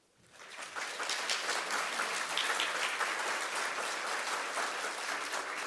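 Audience applauding, swelling over the first second into steady clapping.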